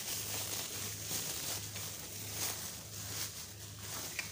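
Soft, irregular rustling of objects being handled and shifted on a fabric surface, with a faint click near the end and a low steady hum underneath.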